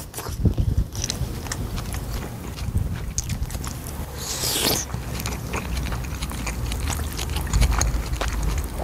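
Close-miked chewing and wet mouth clicks of a person eating soft braised kimchi with rice from a spoon, with a brief airy slurp as a spoonful goes in about four and a half seconds in.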